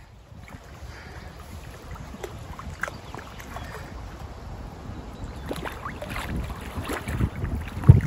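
Hooked common carp splashing and swirling at the surface close in, over wind buffeting the microphone; the splashes come more often in the second half, with the loudest just before the end.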